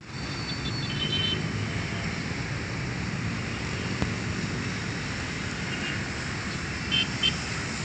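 Steady outdoor noise of wind on the microphone and distant traffic. A few short high chirps sound about a second in, and two louder ones come near the end.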